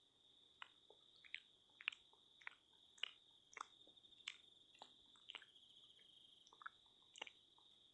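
Close-miked ASMR mouth sounds: soft, irregular wet clicks and smacks, roughly two a second, over a faint steady high-pitched tone.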